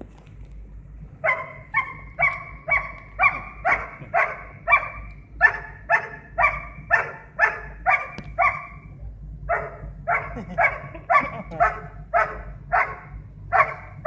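A dog barking over and over, about two barks a second, with a short break about nine seconds in.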